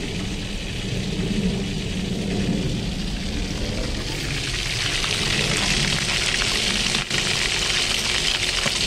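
Chicken drumsticks frying in hot oil in a wok, a steady crackling sizzle that gets louder and brighter about halfway through.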